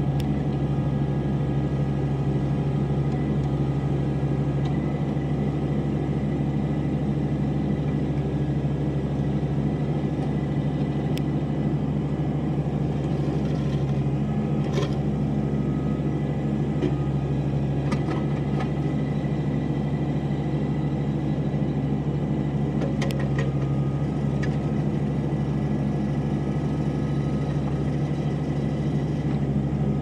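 New Holland TC35 compact tractor's diesel engine running steadily at a constant speed while the backhoe is worked. A few short, sharp clicks and knocks sound over the engine now and then.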